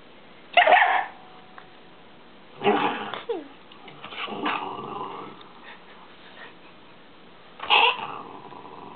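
Small dog growling over her rawhide chew, breaking into three loud sudden outbursts: one about half a second in, one near three seconds, and one near the end. It is a warning to keep off the chew she is guarding.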